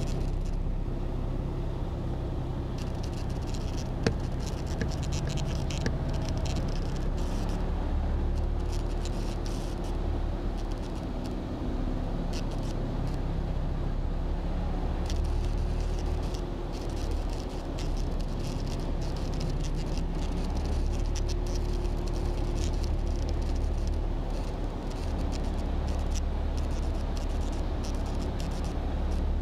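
Heavy vehicles driving slowly through deep floodwater: a steady low engine rumble from a semi-trailer truck, with water splashing and churning around the wheels in hissing surges that come and go.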